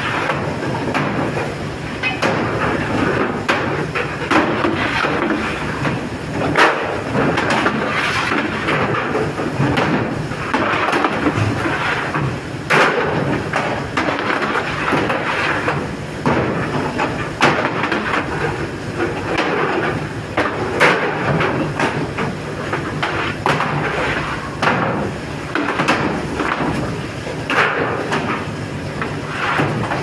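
Steady machinery running on a fish-factory deck, with irregular metal bangs and clatter as frozen fish blocks are knocked out of freezer trays and slid onto a steel conveyor chute. A handful of louder bangs stand out among the smaller knocks.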